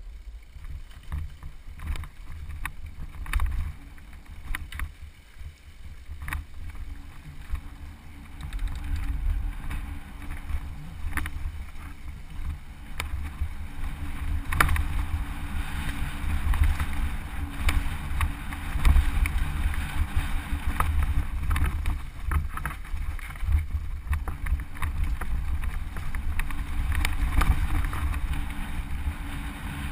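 Mountain bike riding fast down a rocky dirt trail: wind buffeting the microphone as a deep rumble, with frequent clicks and knocks from the bike and tyres over stones. It gets louder and busier about eight seconds in, as the speed picks up.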